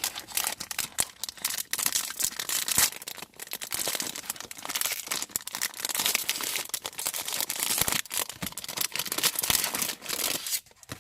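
Wrapper of a Halls cough-drop multipack being torn open and handled: continuous crinkling and tearing with many sharp crackles. It stops about ten and a half seconds in, followed by a couple of faint clicks.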